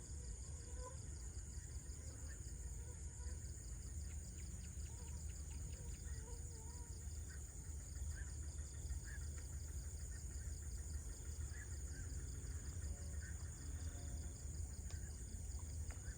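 Evening nature ambience: a steady, high-pitched insect chorus trilling throughout, with scattered short bird chirps and calls over a low rumble of background noise.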